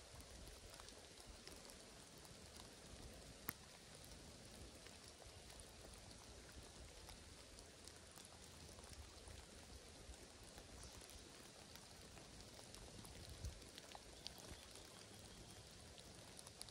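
Faint, steady rain patter, with a few sharper single drops landing close by, one about three and a half seconds in.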